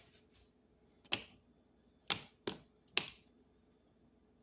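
Four short, sharp clicks and knocks of hard objects being handled, spaced roughly half a second to a second apart.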